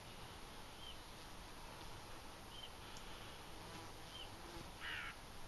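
A crow gives one harsh caw near the end, the loudest sound here. Before it, a small bird makes a short chirp every second or two over faint, steady outdoor background noise.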